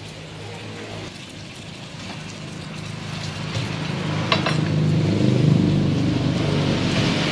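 A motor engine runs steadily, growing louder past the middle and easing off near the end. A single sharp metal clink comes about four seconds in.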